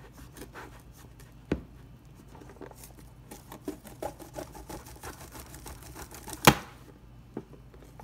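Kitchen knife sawing through a lucky bamboo stem on a plastic cutting board: a run of small clicks and ticks as the blade works through the stalk, with a sharp knock about a second and a half in and a louder one near six and a half seconds.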